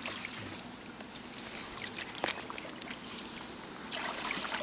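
Water trickling and sloshing, with a few small splashes and knocks, the loudest about two seconds in.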